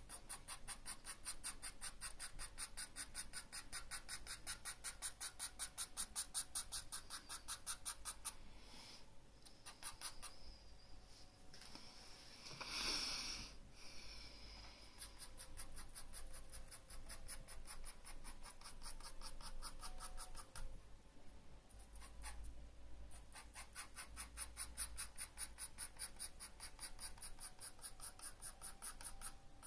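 Graphite pencil scratching on paper in fast back-and-forth hatching strokes, several a second, in runs broken by short pauses. A single louder, longer rub comes about halfway through.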